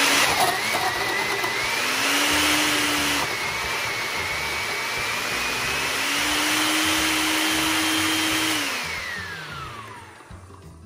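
Countertop blender motor running at full speed, blending frozen mango chunks into a milk and blackberry smoothie, its whine rising and dipping a few times. It is switched off about nine seconds in, and the whine falls away as the motor spins down.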